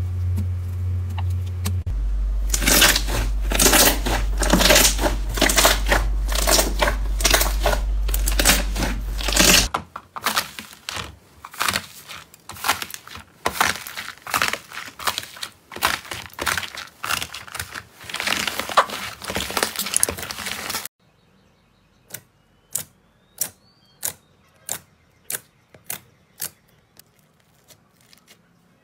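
Hands stretching, kneading and pressing slime, making dense crackling and popping clicks for most of the first twenty seconds, with a low steady hum under the first ten. Near the end only sparse sharp clicks remain, about one a second.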